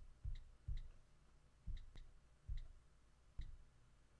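iPad on-screen keyboard clicks as a word is typed: about seven short taps at an uneven pace, each a light tick over a dull knock.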